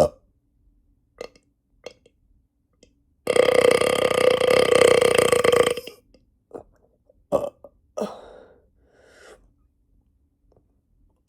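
A long, loud burp held at a steady pitch for about two and a half seconds, starting a few seconds in, with a few short, quieter sounds after it.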